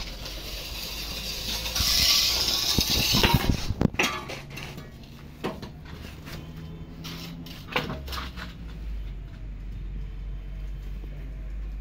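Scraping and knocking as a hand-cast cement flue pipe and its mould are handled: a loud rasping scrape about two seconds in, then a few separate knocks.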